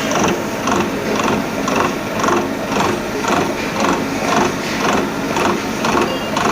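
CNC milling machine running with a steady, even mechanical clatter of about three beats a second.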